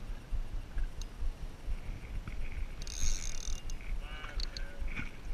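Wind buffeting the camera microphone with water noise around a drifting boat, a steady low rumble. About three seconds in comes a brief high hiss, and a second later a short squeaky, wavering sound.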